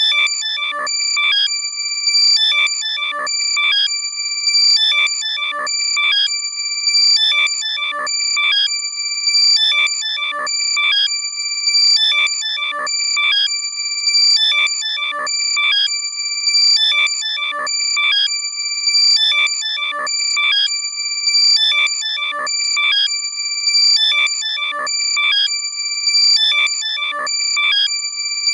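Loud electronic alert tone for finding a lost AirPod, played in the right channel only: high steady beeping tones with sweeping chirps, repeating in a loop about every two seconds.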